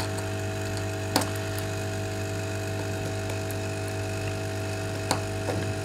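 Steady electrical hum of bench equipment, with a few sharp clicks from a precision crosshead screwdriver working the small screws of an iPod Nano's metal shield, about a second in and near the end.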